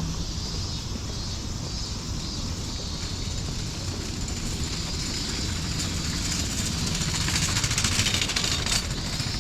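Cicadas buzzing in a high, steady summer chorus that swells into a louder pulsing buzz for a couple of seconds near the end, over a low steady rumble like distant traffic.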